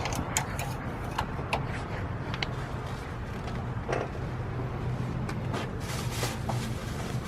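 Light clicks and knocks from handling a plastic motor-oil bottle and its cap, with a brief hiss near the end, over a steady low background hum.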